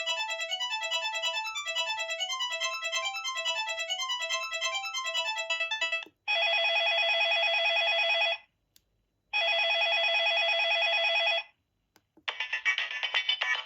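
Samsung SGH-C130 mobile phone's ringtones played one after another. A melody of quick short notes ends about six seconds in. Then a steady ringing tone sounds twice, about two seconds each with a second's gap, and another ringtone begins near the end.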